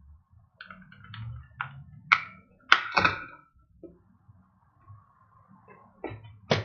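Sharp plastic clicks and knocks as the power bank's plastic case is pried open, its cover held down by strong double-sided tape. A quick run of them comes in the first three seconds, loudest near the end of that run, then one more sharp knock near the end.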